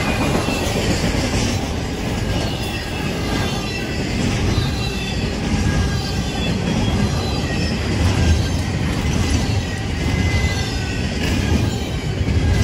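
Double-stack intermodal freight train's well cars rolling past at speed: a steady rumble and rattle of steel wheels on rail, with scattered faint, short high-pitched wheel squeals.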